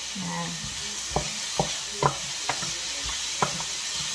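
Beef, garlic and onion sizzling in hot oil in a wok while being stir-fried, with wooden spatulas knocking and scraping against the pan about twice a second.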